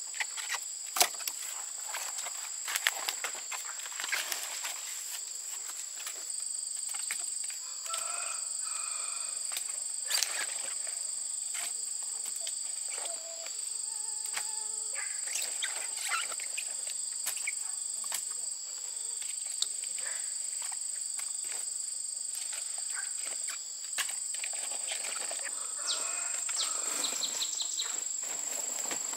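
Steady high-pitched drone of chirping insects, with many scattered clicks and knocks and a few short calls over it.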